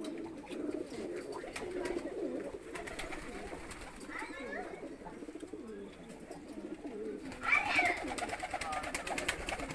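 Several caged Mookee pigeons cooing, a steady wavering murmur of coos. A louder, higher-pitched sound comes about seven and a half seconds in, followed by a run of clicks.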